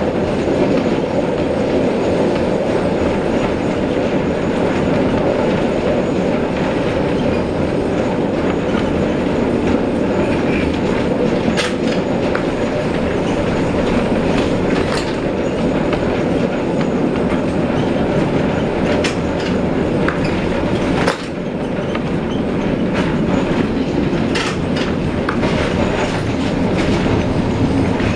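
Streetcar running along its rails, heard from inside the car: a steady rumble with scattered sharp clicks. A sudden click comes about three quarters of the way in, and after it the rumble drops a little in loudness.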